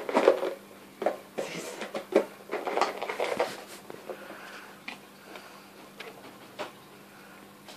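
Chinchillas hopping about a wire-mesh cage with wooden ledges, making knocks and rattles that come thick for the first few seconds, then fainter scattered clicks, over a steady low hum.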